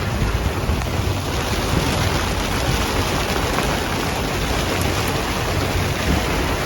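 Heavy rain pouring down in a steady, dense hiss, with a low rumble underneath.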